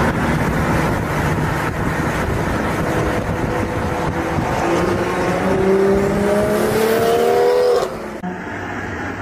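BMW M4 coupe's engine and exhaust accelerating hard, its pitch climbing steadily from about three seconds in, then cutting off abruptly near the end.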